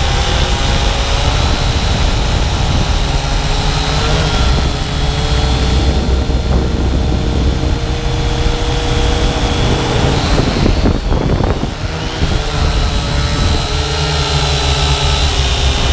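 Syma X8W quadcopter's motors and propellers whining in flight over a strong low rumble, the pitch shifting as the throttle changes. The tones dip and come back up about eleven seconds in.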